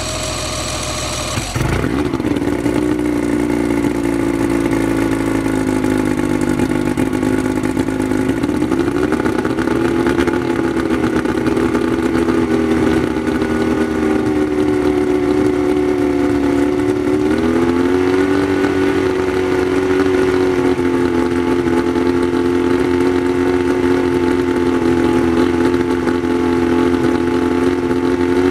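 Mercury 115 inline-six two-stroke outboard cranked over and catching about a second and a half in, then running steadily at a fast idle. Its engine speed rises slightly twice, about 8 and 17 seconds in.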